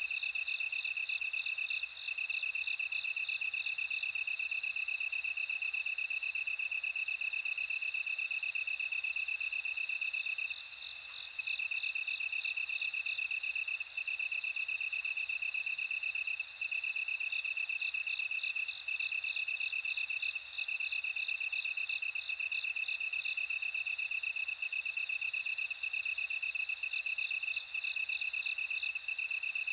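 Bell crickets (Meloimorpha japonica) singing in chorus: a continuous high trill with clear ringing phrases of a second or two that recur every few seconds.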